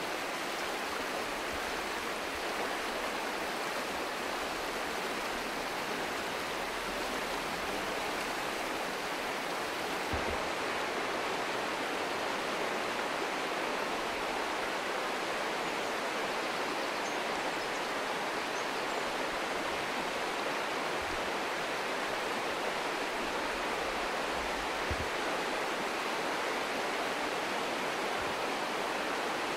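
River water rushing steadily over a trout stream's bed, an even hiss of flowing water, with a couple of faint low bumps about ten seconds in and near the end.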